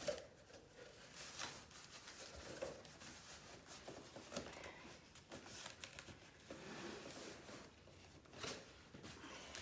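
Cardboard boxes being handled: an inner box scraping and sliding against the outer shipping carton as it is worked loose, with a few faint knocks along the way.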